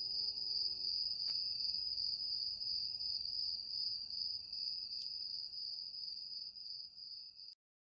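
Crickets chirping in a steady high trill. The last notes of a soft music track die away about a second in. The chirping cuts off suddenly near the end.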